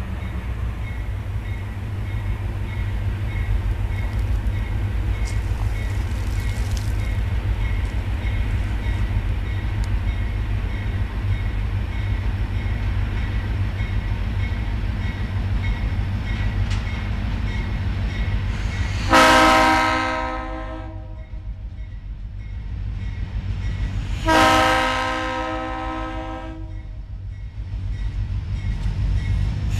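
Diesel freight locomotive approaching with a steady low rumble, then sounding its multi-chime air horn: two long blasts about five seconds apart, with a third just starting at the end. This is the horn signal for the road crossing ahead.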